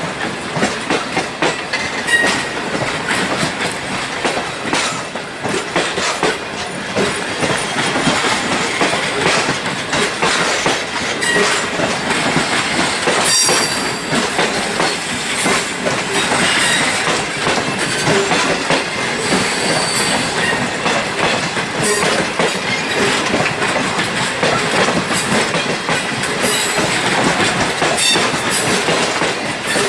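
Stainless-steel passenger carriages of the Indian Pacific rolling past: a steady rumble of wheels with rhythmic clickety-clack over the rail joints, and a few brief high-pitched wheel squeals now and then.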